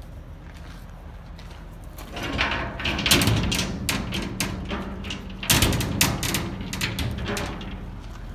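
Metal clatter: a run of sharp clicks, clunks and rattles that starts about two seconds in and dies away near the end, over a steady low hum.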